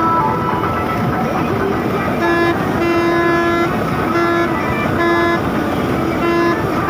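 Virat 982 combine harvester running steadily, with a horn-like tone sounding five times over it, one toot held for nearly a second.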